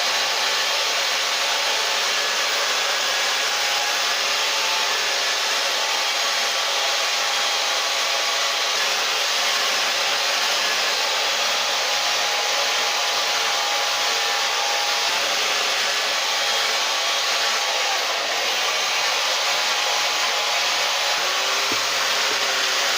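Chainsaw running steadily at speed while its bar cuts into a wood log, carving the shape of a nose into a face.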